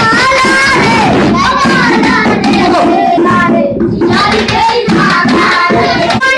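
A song sung over music, with hands clapping along.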